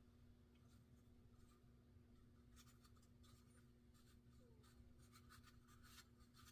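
Near silence with faint scattered clicks and scratches, most of them in the second half, from small plastic spincast reel parts being handled and prodded, over a steady low hum.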